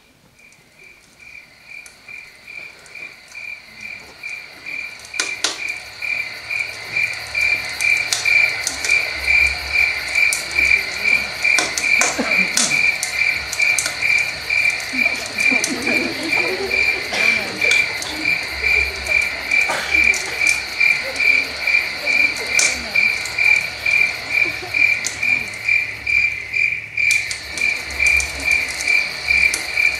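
Cricket chirping played as a stage sound effect for a night scene: a steady, even chirp of about two to three pulses a second that fades in over the first several seconds and then holds. A few faint knocks sound over it.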